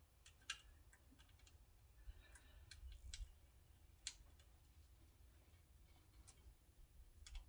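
Faint, scattered metallic clicks and light taps as a bolt and the alternator bracket are handled and fitted together, about half a dozen at irregular intervals.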